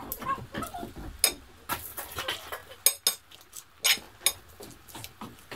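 Cutlery and dishes clinking and knocking: a dozen or so sharp, short clinks at uneven intervals, a few in quick pairs.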